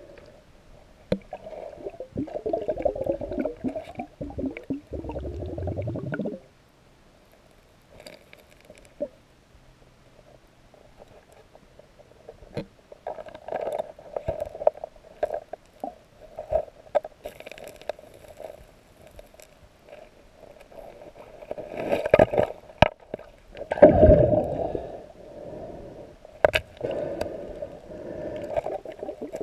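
Underwater sound of a riverbed being worked by hand: gurgling water, with sharp knocks and scrapes of rocks and gravel as a boulder is rolled aside. The gurgling is loudest for a few seconds near the start and again about three-quarters of the way through.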